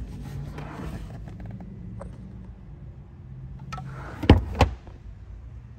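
Cargo-area load-floor panel being lifted by its strap handle and handled, with a light click about two seconds in and two loud knocks of the board a little past four seconds in, over a steady low hum.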